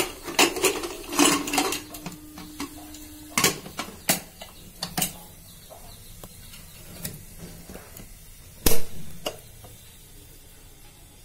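Aluminium pressure cooker being handled and shaken with its lid on, to turn the litti cooking in oil inside: scattered metal clanks and knocks of the lid and body. A short steady ringing tone sounds about a second in and lasts about two seconds, and a single clank near nine seconds in is the loudest.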